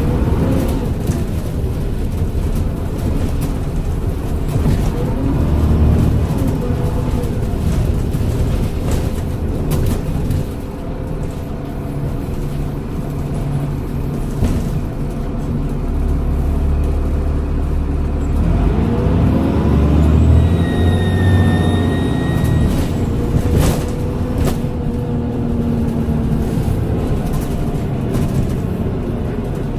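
Transbus Trident double-decker bus's diesel engine and Voith automatic gearbox running under way, the engine note climbing as it pulls away about two-thirds of the way in. A high-pitched turbo whistle rises over it for a couple of seconds, and a few sharp knocks follow.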